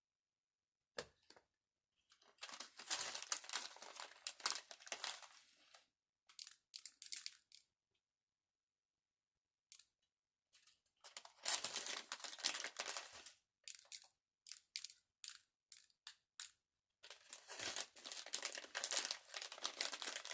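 Crinkling and rustling, as of plastic packaging being handled, in several bursts of one to three seconds with dead silence between them.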